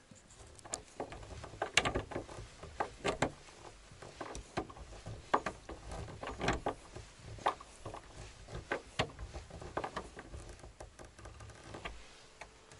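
Irregular clicks and knocks, about one or two a second, of hand tools and a metal door bolt being worked on a wooden plank door, as the bolt is unscrewed or refitted.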